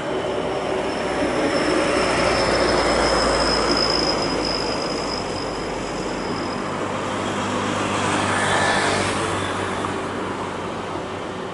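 Boeing 737-800's CFM56-7B turbofan engines at takeoff thrust during the takeoff roll: a broad rushing roar that swells twice, with a high fan whine in the first half that fades about halfway through.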